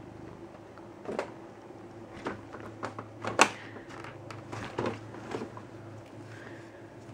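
Plastic bags crinkling and rustling in a string of short bursts as a cat steps and settles on them, loudest about three and a half seconds in, over the Siamese cat's steady low purring.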